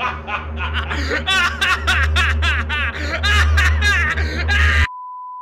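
Men laughing loudly and continuously over music with a steady low bass drone. Everything cuts off suddenly near the end, followed by a short steady electronic beep.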